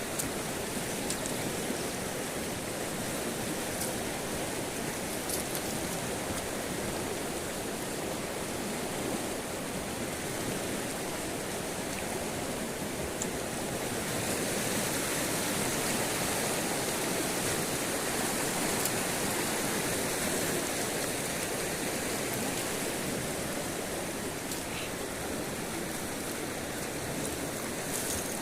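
River water running steadily over rocks, a little louder and hissier partway through.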